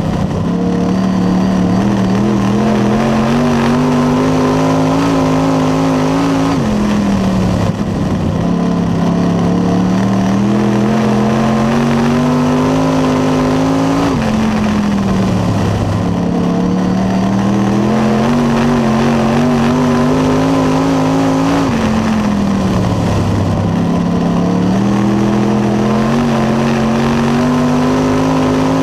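Late model race car's V8 engine heard from inside the cockpit during racing laps. Its pitch climbs steadily for several seconds on each straight, then drops sharply as the driver lifts for the turn, in a cycle repeating about every seven and a half seconds.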